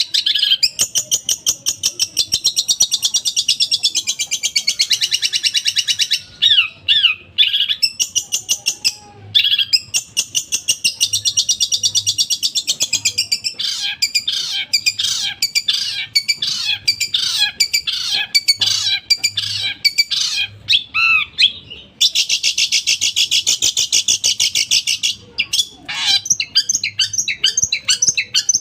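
Long-tailed shrike (cendet) singing a loud, fast, harsh rattling song of rapidly repeated sharp notes, broken by a few short pauses and by runs of quick downward-slurred notes in the middle.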